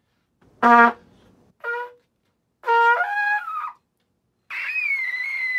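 Mendini MTT-N nickel-finish trumpet played in the upper register: a few short notes climbing in pitch, then, from just before the end, a long very high note, E above double high C, that wavers slightly in pitch.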